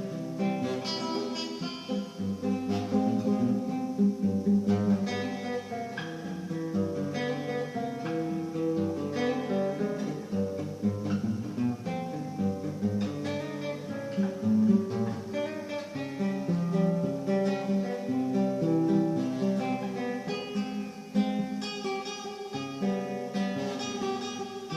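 Instrumental acoustic guitar music: a plucked melody over chords.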